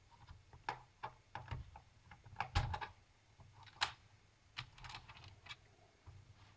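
Irregular small clicks and taps of plastic and metal as cable connectors are unplugged inside an opened laptop, the loudest about two and a half and nearly four seconds in.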